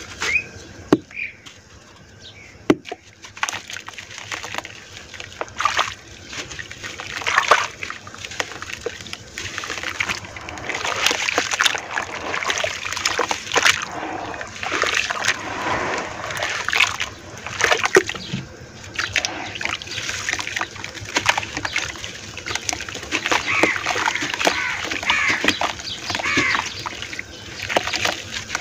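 Hands sloshing through muddy water in a basin and squeezing and crumbling lumps of gritty red dirt, with irregular splashes and wet crackling. The splashing grows busier after the first few seconds.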